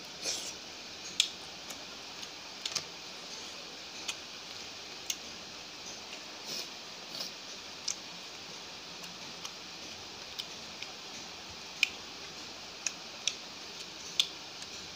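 Close-up sounds of a person eating by hand: scattered, irregular sharp clicks and smacks of chewing and of fingers tearing porota and handling curry, over a steady faint hiss.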